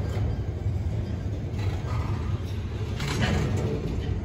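Florida East Coast Railway intermodal freight train rolling past: a steady low rumble of cars on the rails, with a brief louder burst of rattling noise about three seconds in.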